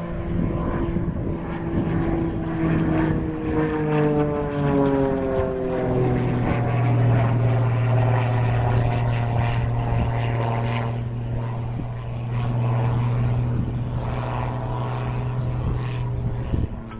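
Single-engine propeller aerobatic plane flying overhead. Its engine and propeller note falls in pitch over the first few seconds, then holds a steady drone, and drops away suddenly near the end.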